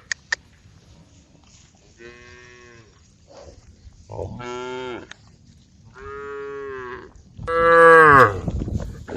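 Cattle mooing: four separate calls of about a second each, the last one the loudest.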